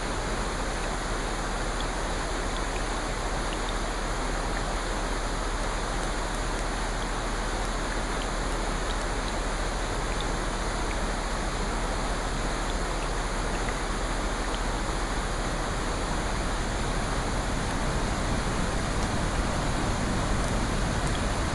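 Steady rushing water noise with faint scattered ticks, the sound of rain or running water used as a sleep soundscape.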